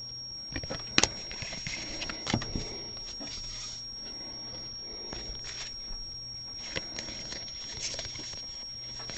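Trading cards being handled: soft slides and rustles as cards are moved off a stack, with scattered light clicks, the sharpest about a second in.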